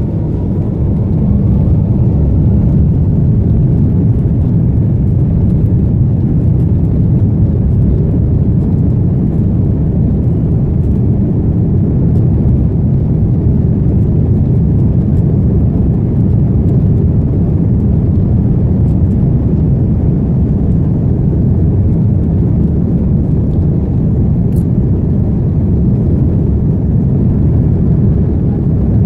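Airliner's jet engines at takeoff power with runway rumble: a loud, steady low rumble that builds up in the first couple of seconds, with a faint rising whine as the engines spool up at the start.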